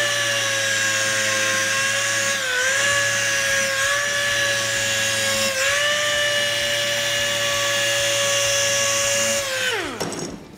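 Air-powered random orbital sander running with a steady high whine while sanding a foam seat cushion. Its pitch dips briefly twice, then it spins down with a falling whine near the end.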